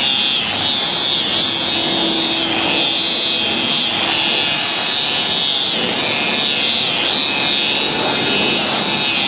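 Electric rotary car polisher running steadily with a high whine as its spinning wool pad buffs a car's painted bonnet; the pitch wavers a little as it works.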